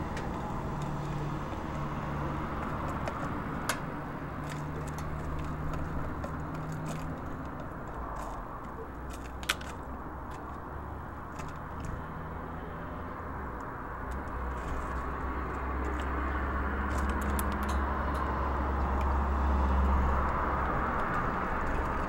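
Steady rumble of road traffic, swelling as a vehicle passes near the end. A few short sharp clicks stand out over it.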